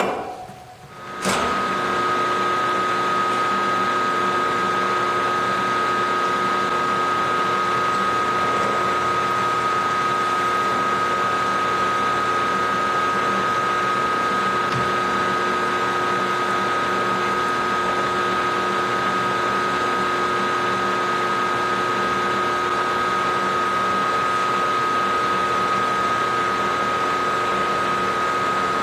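Milling machine spindle starting about a second in, then running at a steady speed with a high, steady whine while a reamer is fed down into a drilled hole in the workpiece.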